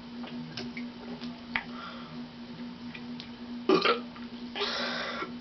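A girl burping after gulping down a can of soda: a short loud burp a little past halfway, then a longer, noisier one near the end. Faint small clicks and a steady low hum run underneath.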